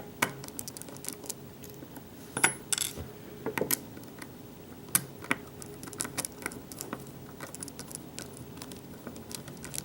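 Scattered light metallic clicks and clinks of a pin-tumbler lock and lock-picking tools being handled, with a few sharper clinks about two and a half, three and a half and five seconds in.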